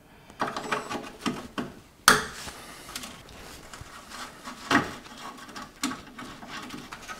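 Hand-tool work on a car's air-conditioning pipe fittings and clamp: scattered metal clicks and knocks, with a sharp clank about two seconds in and another about five seconds in.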